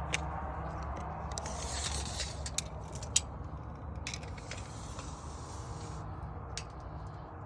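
An engine running steadily at low speed, with scattered sharp clicks and two stretches of rustling hiss from handling nearby.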